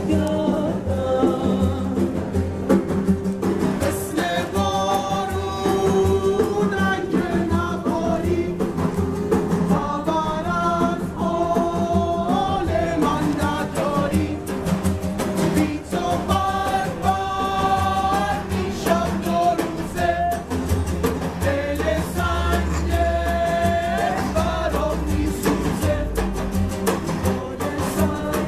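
Street band performing: several voices singing together over strummed acoustic guitars and a large hand-played frame drum.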